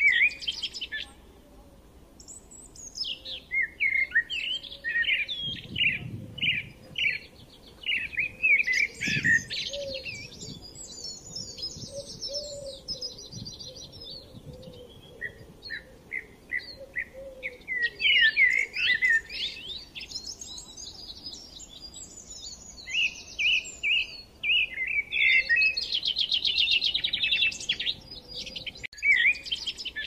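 Several small songbirds singing at once: overlapping quick chirps and rapid trills, with a fainter, lower call running underneath.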